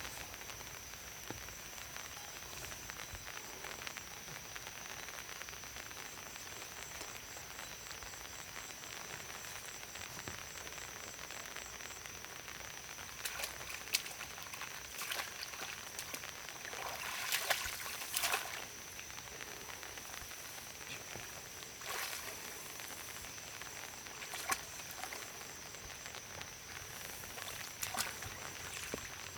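Outdoor ambience: a steady, high-pitched chorus of small calling animals, with scattered clicks and knocks, clustered about halfway through.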